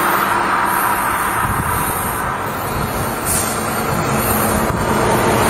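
Steady rushing of highway traffic as a large truck approaches, growing a little louder near the end.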